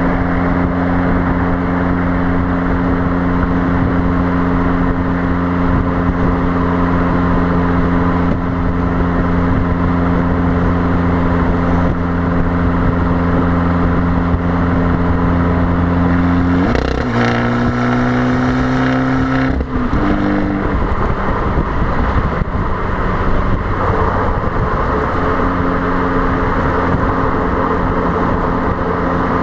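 Fiat Abarth 595's turbocharged 1.4-litre four-cylinder exhaust droning steadily at motorway cruise, with wind noise on the microphone. About two-thirds of the way through, the note jumps and climbs for a few seconds as the car accelerates, then cuts off suddenly, and the steady drone comes back.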